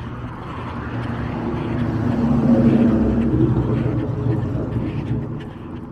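A motor vehicle passing along the street, its engine and tyre noise building to a peak about two and a half seconds in, then fading away.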